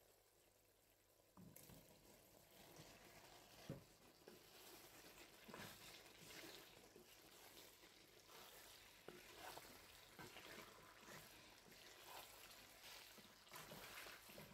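Boiled pasta being stirred into hot red sauce in a non-stick frying pan with a spatula: faint sizzling with wet stirring and scraping, starting about a second and a half in, with one sharper knock a couple of seconds later.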